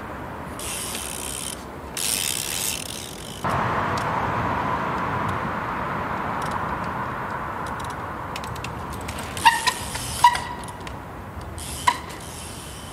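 Trials bike's rear freewheel hub ratcheting as the rider coasts, slowly fading, with several sharp clicks in the second half.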